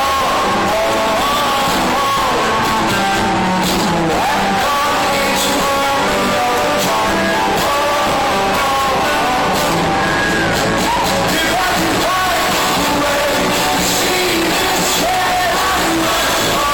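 Rock band playing live, with a lead singer over guitar, at a steady high loudness.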